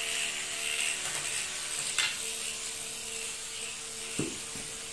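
Steady whirring hiss of a self-balancing gyroscopic two-wheeler running, its spinning flywheel rotor and motors humming, as the vehicle drives off. There is a sharp click about two seconds in and a brief low gliding sound near the end.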